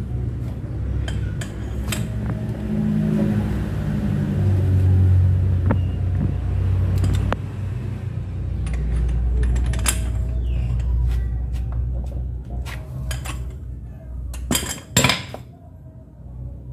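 Steel sockets and a long breaker bar clinking and clanking against a car's front wheel hub and studs as the CV axle nut is worked on. Scattered metallic knocks over a steady low rumble, with two sharp clanks a little before the end.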